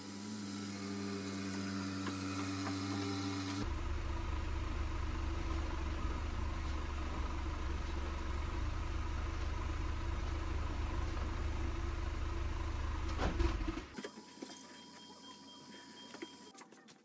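Car engine idling: a steady low rumble that sets in a few seconds in and cuts off abruptly near the end, leaving a faint hum.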